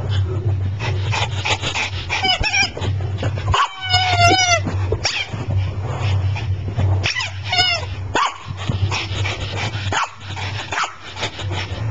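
Pomeranian whining and whimpering in short, high, wavering calls, three bouts of them, eager for a squeaky toy being kept from her, with short scraping and clicking sounds in between.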